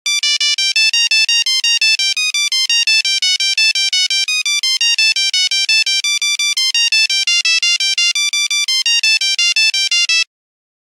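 Nokia mobile phone ringtone playing a fast melody of short beeping notes, one note at a time, about six a second. It stops abruptly near the end.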